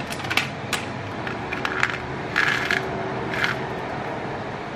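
Foil lid being peeled off a plastic Chobani Flip yogurt cup, then the cup's plastic toppings compartment bent over, giving a series of short crackles and crinkles, the loudest a little past the middle.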